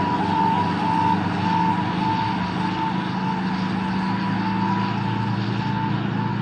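Fire apparatus siren sounding a repeating whooping tone about twice a second, over a steady low engine rumble and road noise.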